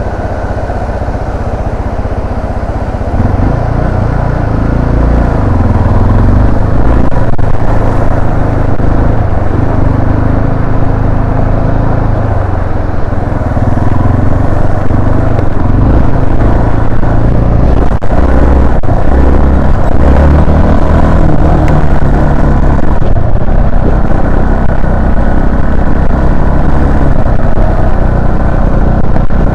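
Yamaha Serow 250's carburetted single-cylinder four-stroke engine running under way, its pitch shifting as the throttle changes; it gets louder about three seconds in.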